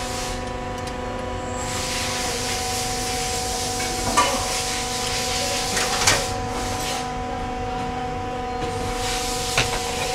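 Steady machine hum with a hiss underneath, broken by a few sharp metallic clicks of a spanner on the exhaust hanger bracket bolt, about four and six seconds in and again near the end.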